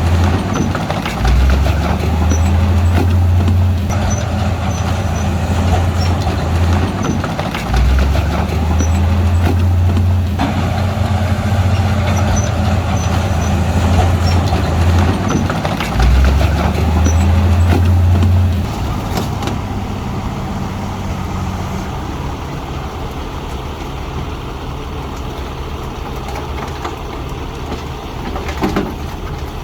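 Bulldozer's diesel engine working under load. Its low running note climbs and strains three times, about every seven seconds, then drops back to a quieter steady running a little past halfway.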